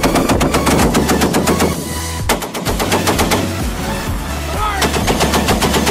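M2 Browning .50-calibre heavy machine gun firing long bursts of rapid automatic fire, with a short break about two seconds in.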